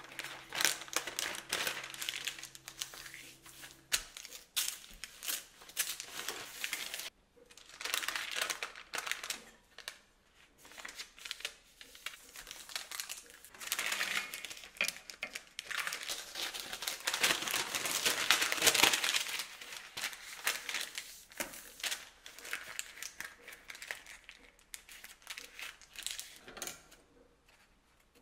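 Crinkly material being handled and crumpled: irregular bursts of rustling and crackling with short pauses, loudest a little past halfway.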